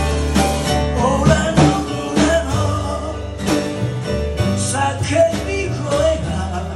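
Live blues band: a man singing to his own acoustic guitar, backed by a drum kit and an upright double bass.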